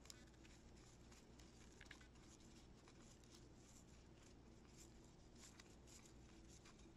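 Faint rustling and small irregular ticks of a paper spiral being rolled tightly between the fingers, over a steady low room hum.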